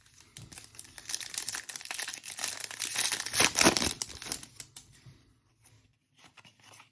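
Foil trading-card pack wrapper crinkling and tearing, loudest a few seconds in, then fading to a few faint clicks and rustles near the end.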